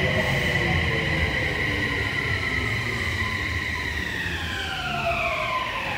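Toei 6300 series subway train pulling into the platform. Its Mitsubishi IGBT-VVVF inverter whines in several tones over the rumble of wheels on rail. About two thirds of the way through the tones start gliding down in pitch as the train slows.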